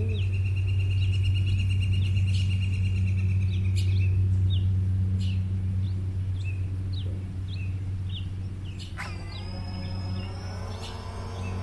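Birds calling: a steady high trill for the first four seconds, then short chirps. About nine seconds in, the DJI FPV drone's motors start and spin up with a slowly rising whine.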